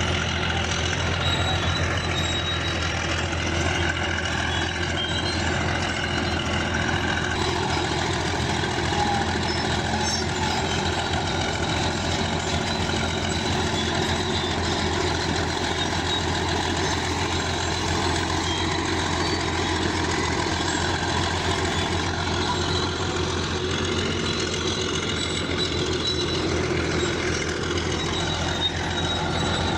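Bulldozer's diesel engine running steadily, with high-pitched squeaks here and there over the drone.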